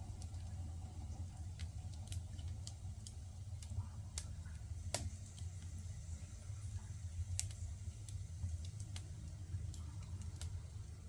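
Firewood crackling in a wood-burning stove: irregular sharp pops, one louder about five seconds in, over a steady low hum.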